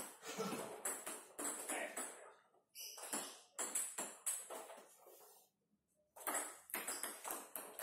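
Table tennis rally: a ping-pong ball clicking off the paddles and the table in quick succession, about three hits a second, with short ringing under a roof. The hits stop for about half a second a little after halfway, then resume.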